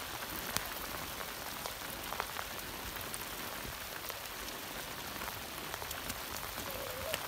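Steady rain falling, with scattered sharp ticks of single drops.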